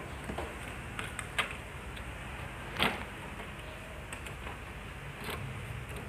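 Metal casing and front panel of a TOA amplifier being handled and lifted off the chassis: a few short clinks and knocks, the loudest about three seconds in, over a steady low background noise.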